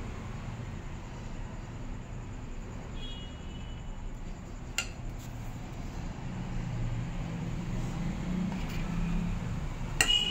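A steady low rumble, with a sharp clink about halfway and another near the end.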